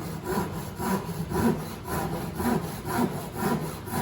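Hand saw cutting through a wooden board along a marked line, in steady back-and-forth strokes of about two a second.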